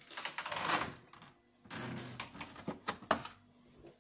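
Fridge door being opened and shut while items are handled inside, with a rustle in the first second and a few sharp clicks and knocks around three seconds in.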